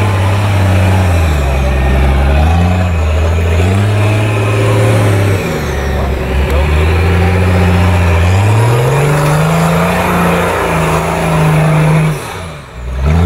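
Toyota 60 Series Landcruiser winch truck's engine revving hard under load on a steep dirt climb, its pitch rising and falling with the throttle and climbing steadily for a couple of seconds past the middle. The sound drops away briefly just before the end.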